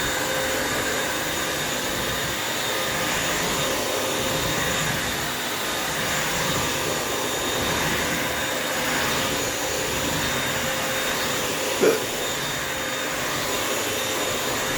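Bissell wet vacuum mop running steadily, a motor whine over a steady rush of suction air. One short, sharp sound cuts in about twelve seconds in.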